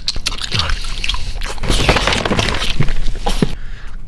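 A person eating pizza greedily, biting and chewing loudly with a quick, irregular run of mouth smacks and crunches.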